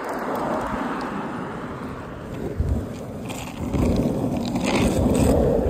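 Longboard wheels rolling on rough asphalt, a steady scraping road noise with low buffets, louder from about four seconds in.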